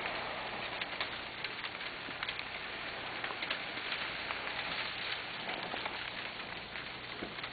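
Sleet falling with a steady hiss, and frequent small sharp ticks of ice pellets hitting the camera.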